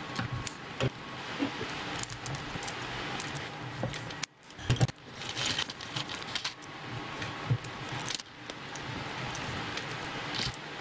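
Small screws and plastic servo horns being handled and screwed to a hexapod robot's body plate with a small screwdriver: scattered light clicks and rattles over a steady hiss, loudest about halfway through.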